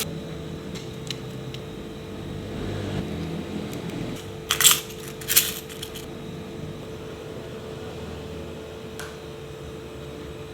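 Objects being handled during an unboxing: a few light clicks and two short, loud rustling bursts about halfway through, over a steady low hum.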